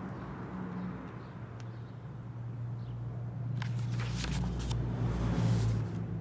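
Low rumble of street traffic, swelling as a vehicle passes about four to six seconds in. A few sharp clicks sound in the middle, then a brief hiss near the end.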